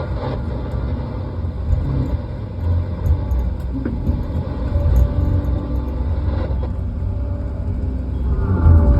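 Steady low engine rumble of heavy logging equipment running, with a faint steady whine joining in near the end.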